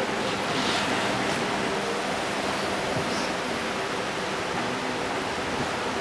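Steady, even hiss of background noise with a faint low hum underneath, and no distinct events.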